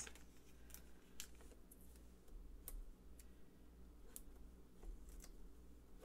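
Faint, scattered small ticks and clicks, roughly one a second: foam adhesive dimensionals being peeled off their sheet and pressed onto black cardstock.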